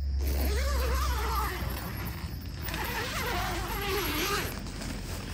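Wavering animal calls whose pitch bends up and down, running for about four and a half seconds over a low steady hum that fades out about two seconds in.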